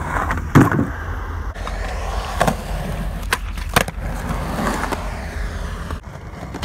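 Skateboard wheels rolling on concrete, broken by several sharp clacks of the board and trucks striking the ground and obstacles. The loudest clack comes about half a second in.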